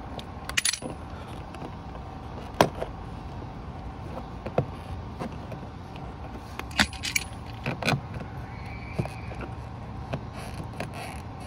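Small metal pry tool clicking and scraping against the plastic puddle light lens and its door-panel housing while the light is worked loose: scattered sharp clicks, the loudest a little over two seconds in, with a cluster around seven to eight seconds.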